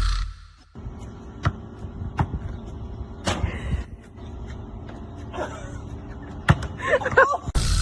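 A few sharp knocks and thuds over steady background noise, with a brief shout or cry near the end.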